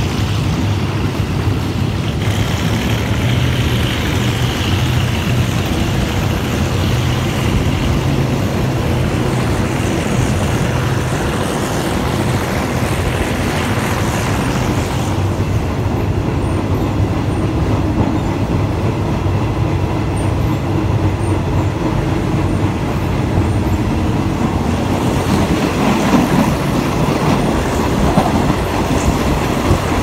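Passenger carriage of a diesel-hauled Thai ordinary train running along the track: a steady rumble and rattle of wheels on rails under a low hum.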